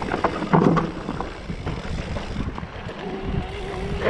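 Mountain bike riding over a rough dirt singletrack: tyres on the ground with the bike's chain and frame rattling, and wind buffeting the microphone.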